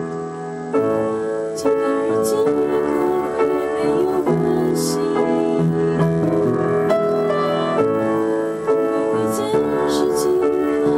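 Piano playing chords and a melody, with a new note or chord every half second to a second.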